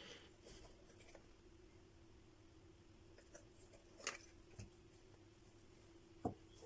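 Near silence with a faint steady hum, broken by a few scattered small clicks and taps of hand tools and phone parts being handled: a sharp click about four seconds in and a duller tap a little after six seconds.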